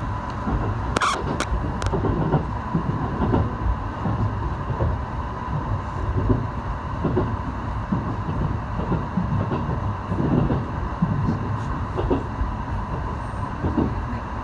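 Running noise heard inside the passenger car of an electric limited express train slowing into a station: a steady low rumble of wheels on the rails with a steady thin whine over it. A few sharp clicks come about a second in.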